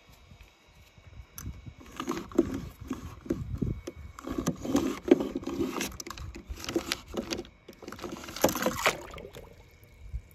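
A small die-cast metal toy tow truck pushed back and forth across a sheet of paper, its wet, paint-covered wheels scraping and rustling the paper in a series of strokes starting about two seconds in and stopping shortly before the end.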